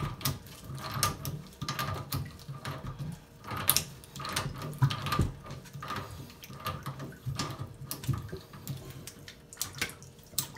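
Metal hand tool being turned on a water-pipe fitting at a wall stub-out: irregular metallic clicks and scrapes, some louder than others.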